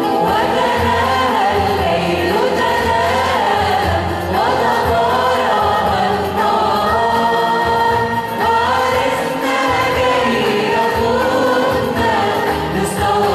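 A church choir singing an Arabic Christian hymn.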